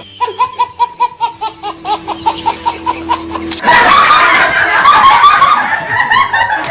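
A quick run of repeated tones, about five a second, over a held low note. About three and a half seconds in, a group of people bursts into loud laughter.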